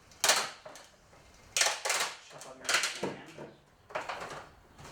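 Plastic box fan being smashed with a golf club: four sharp blows roughly a second apart, each a crack of plastic with a short rattle after it.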